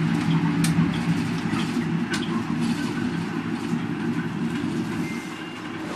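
City bus running, heard from inside the cabin: a steady low drone with two sharp clicks, about half a second and two seconds in.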